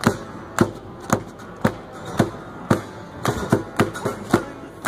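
A live band playing: acoustic guitars strumming over a steady drum beat of about two deep thumps a second, each thump dropping in pitch, with a few quicker extra beats about three seconds in.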